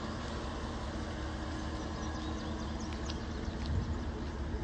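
A steady low mechanical drone, like an idling engine, with a few faint high bird chirps near the middle.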